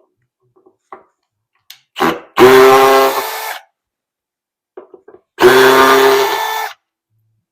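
A cordless power drill/driver runs in two bursts of about a second each, backing out the screws that hold a speaker driver in its cabinet. Each burst is preceded by small clicks as the bit is set in the screw head.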